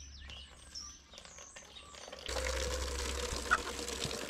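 Small birds chirping. About two seconds in, water starts running steadily from a tap, with a steady hum under it, as the emptied animal water is refilled.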